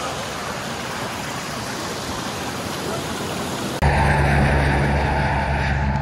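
Steady rush of a creek's flowing water. About four seconds in it cuts abruptly to a louder, steady low hum.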